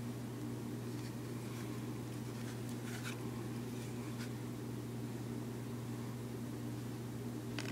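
Steady low hum, as of a fan or appliance, with a few faint light clicks and one sharper click near the end.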